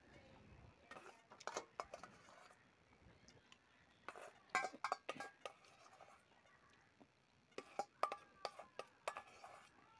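Spoon scraping and clinking against a metal bowl as the last of the food is scooped out, in short runs of clicks about a second in, around four to five seconds, and again near the end, some clinks leaving the bowl ringing briefly.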